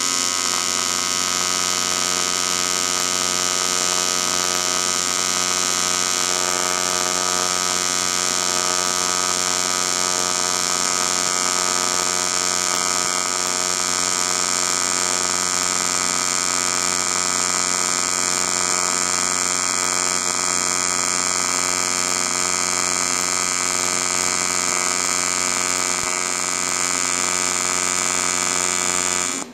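AC TIG welding arc on aluminum from an AHP AlphaTIG 200X welder: a steady, even buzz made of many stacked tones, held unbroken while filler rod is dabbed into the puddle, and cutting off at the very end as the arc is broken.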